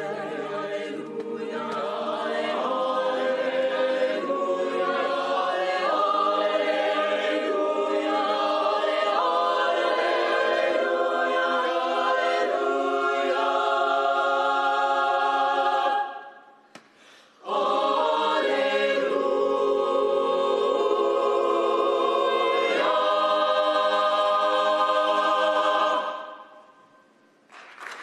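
Mixed choir singing held chords, breaking off for a moment about halfway and then singing on to a final chord that dies away, with applause just starting at the very end.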